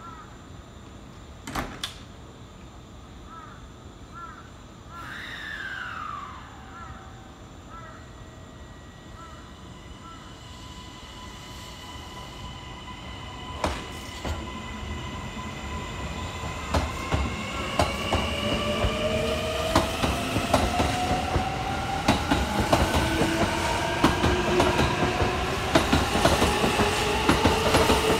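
Kintetsu 80000 series Hinotori electric train pulling away from the platform. Its motor whine climbs steadily in pitch as it gathers speed, and the wheel clatter grows louder and faster toward the end.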